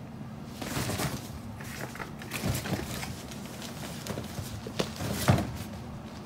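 Kittens scampering and pouncing at play: an irregular run of soft thumps and rustles, the loudest just past five seconds in.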